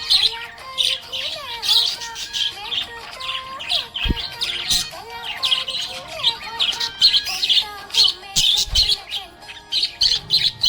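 Budgerigar chirping and warbling continuously: quick high chirps over lower, wavering chatter.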